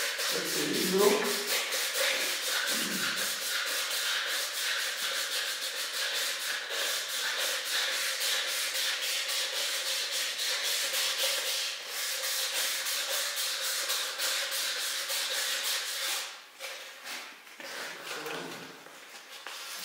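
Rapid, even back-and-forth hand scrubbing strokes on the engine block of a Belarus 820 tractor, cleaning it before the cylinder liners are fitted. The strokes stop about sixteen seconds in, and a few fainter scrapes follow.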